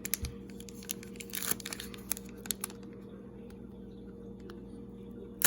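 Foil trading-card pack wrapper being torn open and crinkled. Scattered crackles come over the first couple of seconds, then a louder crinkle near the end.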